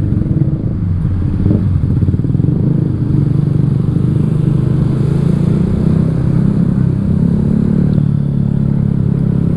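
Honda Vario 150 scooter's single-cylinder four-stroke engine running through a Black Devil R2 Seca long aftermarket exhaust on the move, a steady low exhaust note at a fairly even speed.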